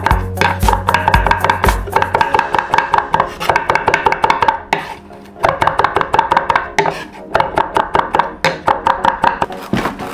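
Chef's knife rapidly chopping minced garlic on a wooden cutting board, a quick run of sharp blade strikes with a brief pause about five seconds in. Background music plays underneath.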